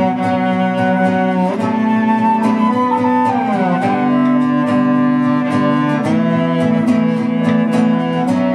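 Live acoustic folk music with no singing: acoustic guitar strummed in a steady rhythm under bowed cello and a held melody line. About three seconds in, the melody slides down in pitch.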